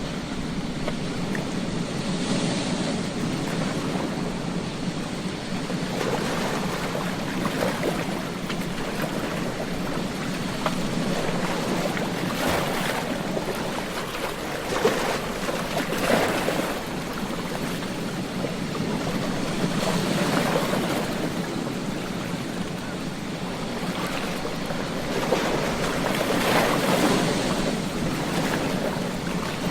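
Ocean waves washing onto a beach: a steady rush of surf that swells louder every few seconds as waves break.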